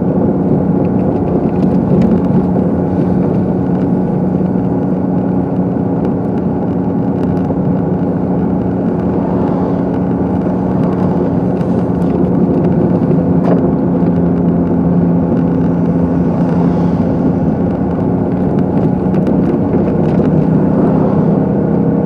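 Steady drone of a car driving, heard from inside the cabin: engine hum and tyre noise on a snow-packed street, holding an even pitch.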